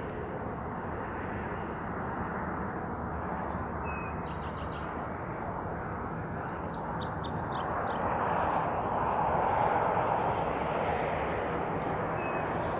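Steady outdoor rushing noise that swells for a few seconds past the middle, with short high bird chirps scattered through it.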